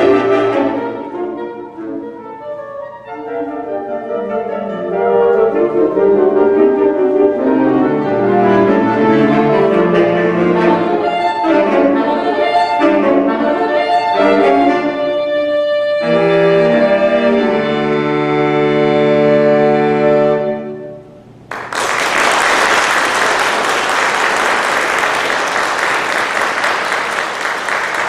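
Saxophone quartet playing, ending on a long held chord about twenty seconds in, followed by audience applause.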